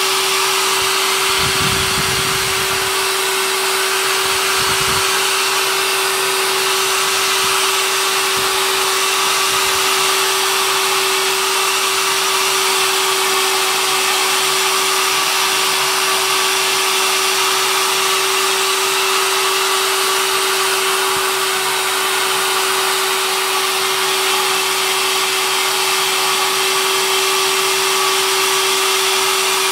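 Hair dryer running steadily on one setting, a constant hum under an airy hiss, blowing on the dampened back of a canvas to shrink it tight.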